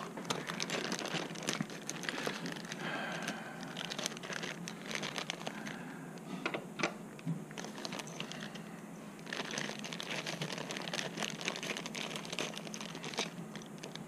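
Thin clear plastic bags crinkling as hands open and handle them, with dense irregular crackles and small clicks. The crinkling eases off a little past halfway, then picks up again.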